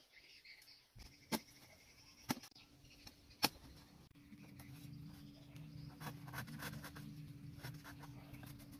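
A large knife striking a thick bamboo section: three sharp knocks about a second apart, then from about halfway on a run of quick scraping strokes as the blade shaves the bamboo's surface.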